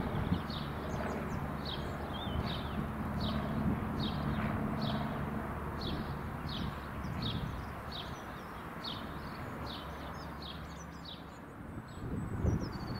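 A small bird singing a short, high, falling note over and over, about twice a second, over the steady low hum of a distant train.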